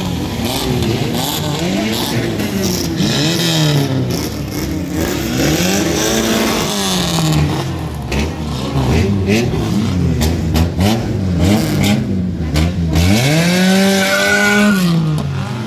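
Several engines revved up and down over and over, the revs often overlapping, with one long rev held high near the end before it drops away.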